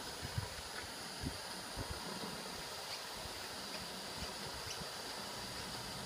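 Gauge 1 live-steam model of a Union Pacific FEF 4-8-4 (Aster kit) standing under steam and hissing faintly and steadily, with a few faint ticks.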